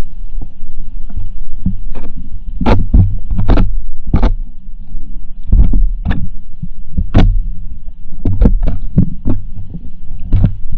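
Muffled underwater sound heard through a GoPro in its waterproof housing submerged in a pond: a heavy low rumble of moving water with irregular sharp clicks and knocks against the housing.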